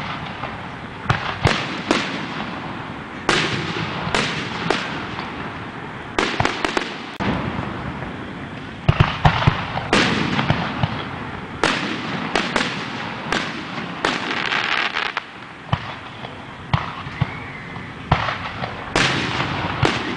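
Aerial fireworks shells bursting one after another: sharp bangs every second or so, with crackling and hissing in between. The loudest bangs come in a cluster about nine seconds in.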